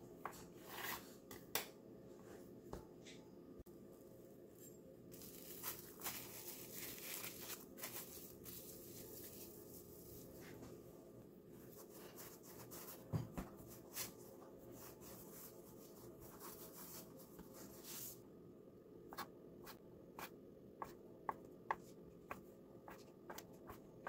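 Plastic dough scraper tapping on a wooden board as it cuts through glutinous rice dough, then hands rubbing and rolling the dough on the board. Near the end, a quick run of sharp taps as the scraper chops the dough log into pieces.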